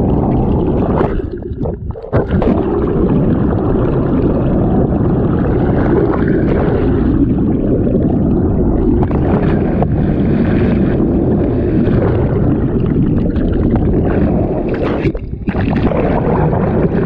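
Steady, loud rumble of a sportfishing boat under way: engine and water rushing along the hull. It drops off briefly about a second in and again near the end.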